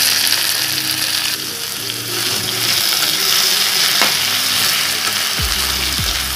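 Red spinach (red amaranth leaves) sizzling loudly in hot oil in a wok while being stirred and tossed with a spatula. The greens have just gone into the hot oil, so the sizzle is at full strength.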